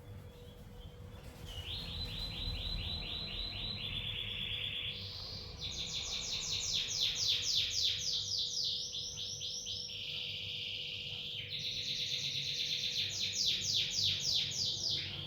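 Pet lovebird chattering in fast, high trills of rapid chirps, several phrases in a row, with short buzzy held notes between them, starting about a second and a half in.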